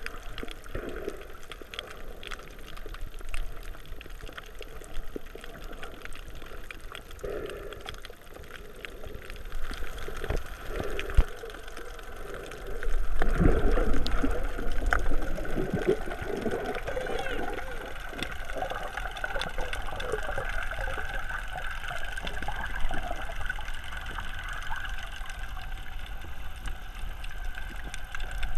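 Water gurgling and bubbling around an underwater camera, with many scattered small clicks. It turns louder with a low rumble about thirteen seconds in.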